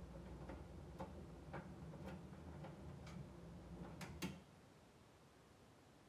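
AEG heat pump tumble dryer's drum turning slowly during its sensing phase: a quiet, steady motor hum with light clicks about twice a second as the load falls in the drum. About four seconds in, the motor and the clicking stop as the drum pauses before reversing.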